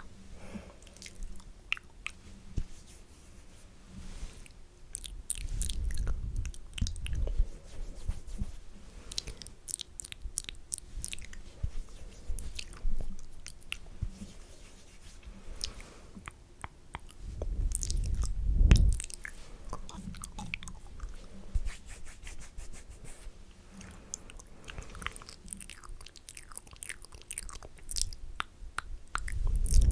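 Close-miked wet mouth sounds: spitty clicks and smacks, with stretches of low, muffled rubbing right on the microphone, the loudest a little past the middle.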